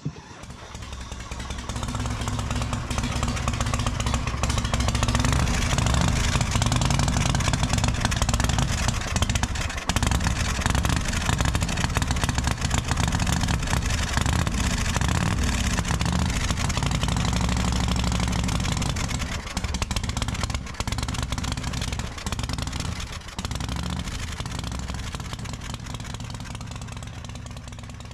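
Knucklehead V-twin engine in a Harley-Davidson FXR running through its chrome exhaust pipes. It fades in over the first few seconds and fades out near the end.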